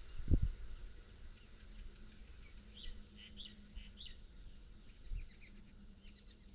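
Birds chirping, a scatter of short high calls from about three seconds in, over a faint steady low hum. A low thump on the microphone just after the start, and a softer one about five seconds in.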